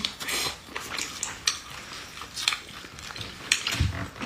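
Close-up eating sounds: biting and chewing meat from a braised goose leg, with short wet smacks and clicks, and a low thump near the end.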